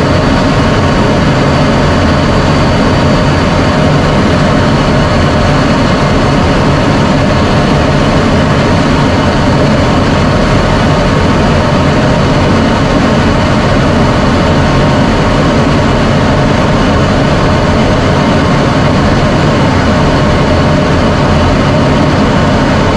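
F-16 fighter jet's turbofan engine running steadily, a loud, unchanging rush with a faint high whine on top.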